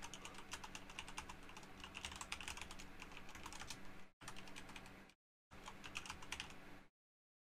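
Typing on a computer keyboard: quick runs of key clicks, with two short breaks about four and five seconds in, stopping shortly before the end.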